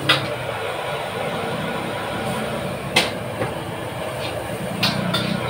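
Metal spatula clanging against a wok a few times while stir-frying: once right at the start, a loud strike about three seconds in, and two quick ones near the end. Under it runs a steady rush of noise from the gas wok burner.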